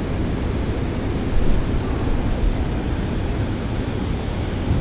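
Turbulent water rushing and churning below a dam outflow, a steady noise, with wind buffeting the microphone.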